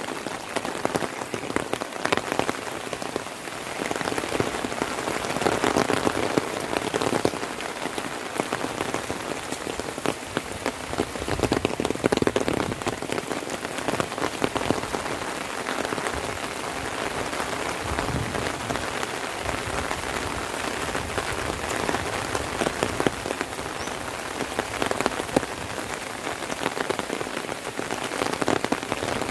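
Heavy rain falling: a dense, steady wash of rain on surfaces with many sharp individual drop hits close by, swelling and easing a little in strength.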